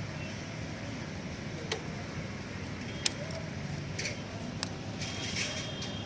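A few sharp, separate metal clicks and clinks of a wrench working on motorcycle rear-sprocket bolts, over steady background noise.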